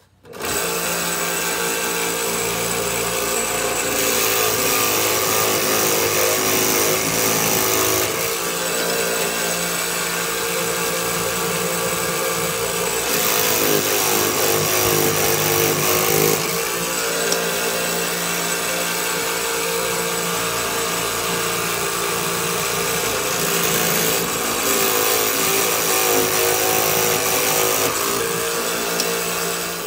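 Jig Saw Jr. toy electric scroll saw running steadily as thin strips of wood are pressed down and fed through its blade. Its sound shifts several times as the cut goes on.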